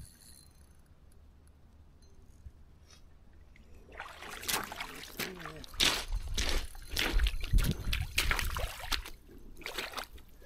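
River water splashing and sloshing in irregular bursts, starting about four seconds in after a quiet stretch and stopping near the end.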